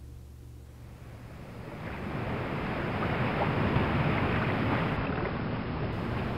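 Ocean surf and wind noise fading in over the first few seconds, then holding as a steady rushing wash, while a low bowed string note dies away at the start.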